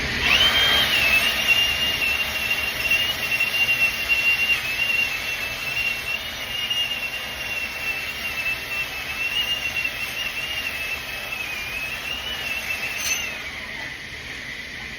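Welding arc struck about a quarter second in, burning with a steady high whine over a hiss for about thirteen seconds, then broken off sharply.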